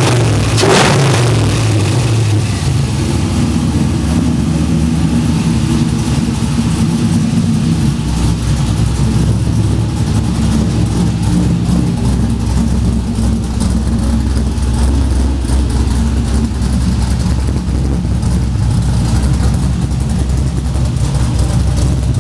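LS1 V8 with a TSP 231/237 camshaft, Pacesetter long-tube headers and a Magnamouth cat-back exhaust, blipped once by hand at the throttle body just after the start, then settling to a steady idle.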